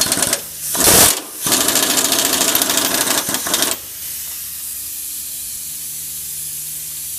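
Impact wrench hammering on a van's wheel lug nut: a couple of short bursts, then a run of rapid hammering for about two and a half seconds as the nut breaks loose, stopping near the middle. A steady hiss and low hum continue under it.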